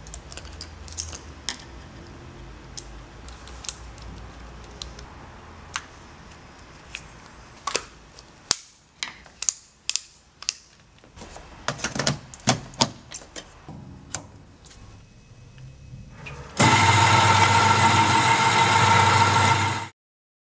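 Scattered sharp metallic clicks and knocks over a low hum. Then a loud, steady mechanical noise starts abruptly about 16 seconds in and cuts off about three seconds later.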